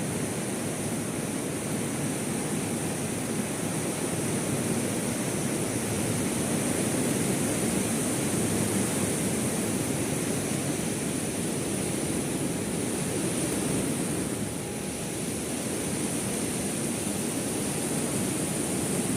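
Heavy rain pouring down in a steady, even hiss, easing briefly about fifteen seconds in.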